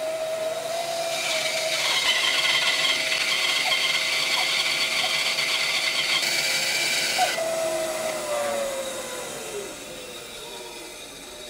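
Rikon 10-305 benchtop bandsaw with a 3/16-inch 4 TPI skip-tooth blade running through a thick hardwood block. A steady hum runs under a hissing cut that stops about seven seconds in. The saw's hum then falls in pitch as the blade slows down.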